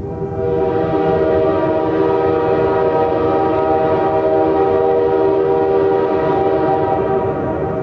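Train horn of GBCR 4619 sounding one long, steady blast of several notes at once. It swells in about half a second in, holds for about seven seconds and tails off near the end, over a steady low rumble.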